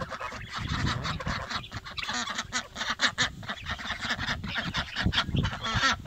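Mixed flock of young geese, guinea fowl and ducks calling over one another: goose honks among many short, rapid calls.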